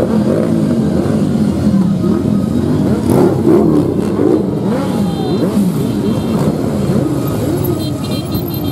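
A procession of motorcycles riding past one after another, many engines revving at once, their pitch rising and falling as each bike accelerates by.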